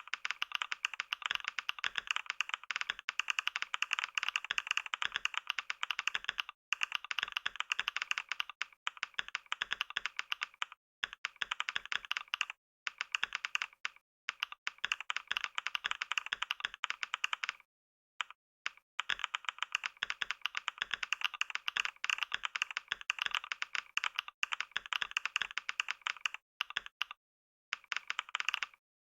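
Rapid typing on a computer keyboard: a dense, continuous clatter of key presses at about 88 words per minute, broken by a few brief pauses.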